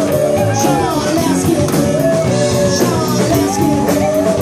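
Live cover band playing an upbeat rock-and-roll song, a singer's melody over guitar and drums with a steady beat.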